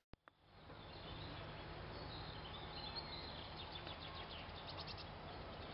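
Faint outdoor background noise with a steady low hum, and distant small birds chirping faintly in the middle; the sound drops out briefly at the very start.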